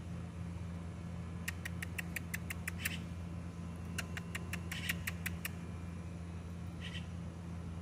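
A bird giving two quick runs of sharp clicking calls, about six a second, then a single short call near the end, over a steady low hum.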